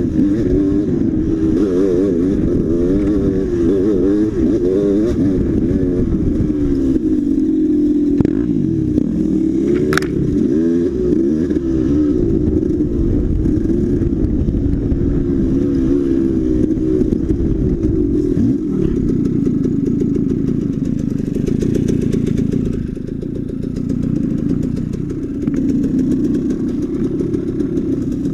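Dirt bike engine being ridden hard, its revs rising and falling constantly with the throttle. There is a single sharp click about ten seconds in, and the engine runs more evenly in the last third.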